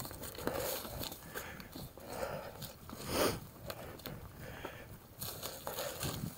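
Mountain bike riding a dirt singletrack: tyres rolling over the trail surface with irregular clicks and rattles from the bike, and a louder burst about three seconds in.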